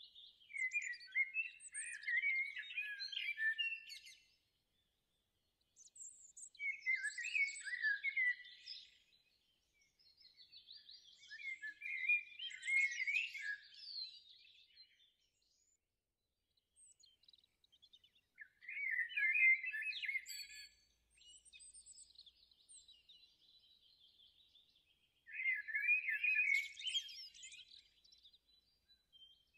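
A songbird singing in bursts of rapid chirps and trills, each a few seconds long with short pauses between.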